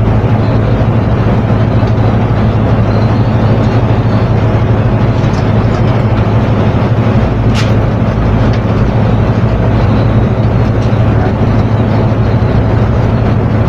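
Steady machine hum with a strong low drone, and one sharp click about seven and a half seconds in.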